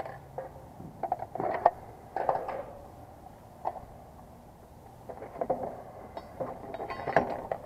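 Scattered clicks, knocks and short rustles from handling tools and parts while working, with no steady machine sound.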